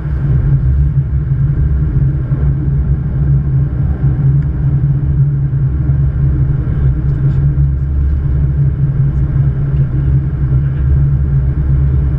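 Steady low rumble of a Boeing 777-200's flight deck in descent: airflow and engine noise, with no voices or radio calls.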